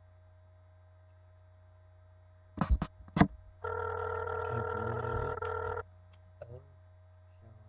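Telephone ringback tone from the phone's speaker as the call rings out: one steady ring about two seconds long, just after a few sharp clicks near the middle.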